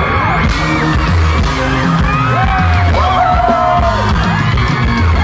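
Loud live pop music from a concert sound system, with fans' high-pitched screams rising and falling over the band.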